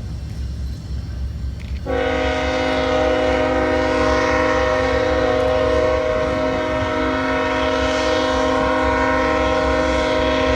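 Locomotive air horn sounding one long, steady multi-note chord, starting about two seconds in and cutting off at the very end, over a constant low rumble.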